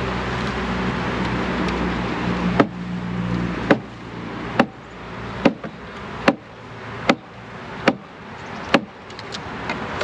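About eight sharp knocks, roughly one a second, starting between two and three seconds in: a honeybee package being tapped to knock the remaining bees down into the hive. Under the first knocks runs a steady rumbling noise with a low hum, which stops about four seconds in.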